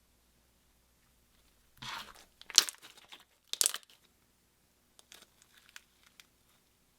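Slime being squished and stretched by hand, giving sticky crackles and pops: a louder run of them about two seconds in, then a few fainter pops a little after five seconds.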